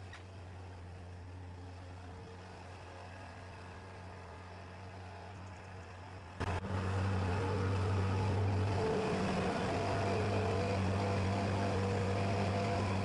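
Skid-steer loader engine running with a steady hum, first farther off, then abruptly louder and closer from about six seconds in as the loader drives across the yard.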